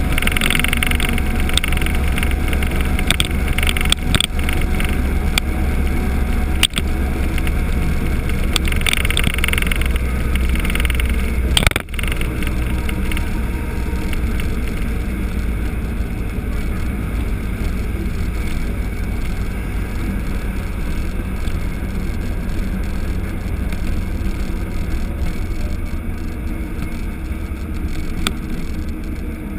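Wind buffeting the camera microphone over the road and engine noise of a moving Honda GL1500 Gold Wing motorcycle. A single sharp knock about twelve seconds in, after which the hissy rush dies down somewhat.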